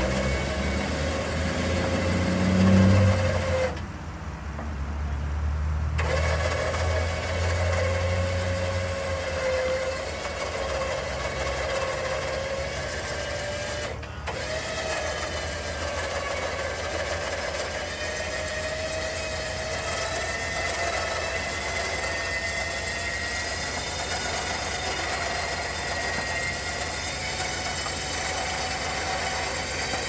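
Vevor 13,000 lb electric winch motor starting and whining steadily as it tensions the line on a tree, its pitch slowly rising under load. A low rumble runs under it for the first several seconds.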